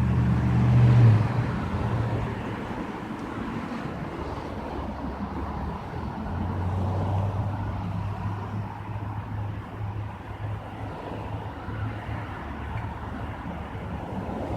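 A motor vehicle's engine running, a steady low hum that is loudest about a second in, eases off, and comes back steadily from about six seconds in.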